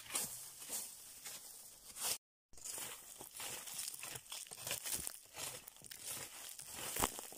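Dry fallen leaves crunching and crackling, stirred and trodden in quick irregular bursts. The sound cuts out for a moment about two seconds in.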